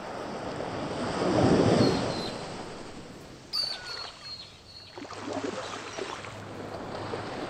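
Ocean surf on a beach: a wave breaks about a second and a half in, its crash the loudest moment, then washes back, and further surf follows near the end. A brief high-pitched sound cuts in about halfway through.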